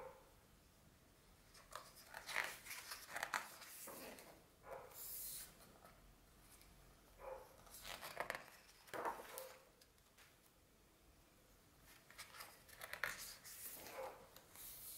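Pages of a large hardcover art book being turned by hand: paper rustling and sliding in three spells, about two, eight and thirteen seconds in, with quiet between.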